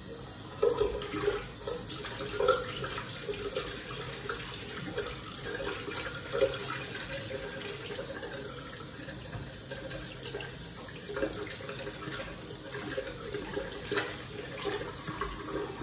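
Bathroom sink tap running steadily, with irregular splashes as water is scooped up to wet the face.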